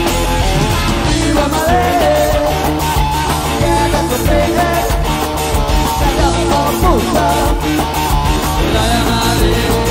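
Rock band playing live, with guitar, bass and a steady drum beat.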